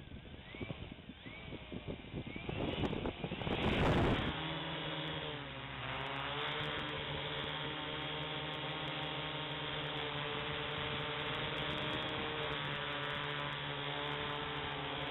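Ideafly IFly4 quadcopter's brushless motors and propellers buzzing in flight, heard from its onboard camera as a steady multi-tone hum. The hum settles in after an uneven start and a loud rush about four seconds in, then dips briefly in pitch before holding steady.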